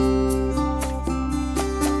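Background music: a plucked-string melody, guitar-like, moving in quick notes over steady low bass notes.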